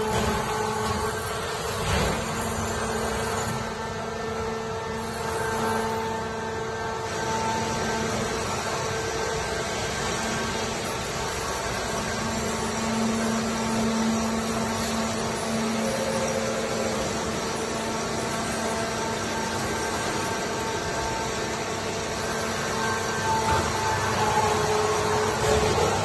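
Horizontal automatic baler running: a steady machine hum with a held whine over it, and a single sharp knock about two seconds in.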